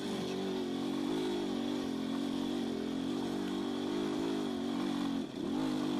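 Enduro dirt bike's engine running as it is ridden along a forest trail, the pitch wavering with small throttle changes; about five seconds in the revs drop briefly and then pick up again.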